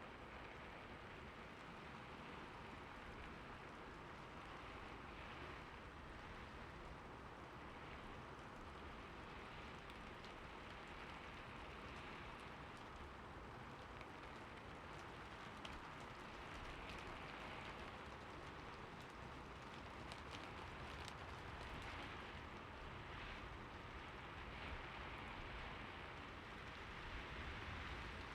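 Soft rain falling steadily: an even hiss with scattered faint drop ticks and a low rumble underneath, growing a little louder in the second half.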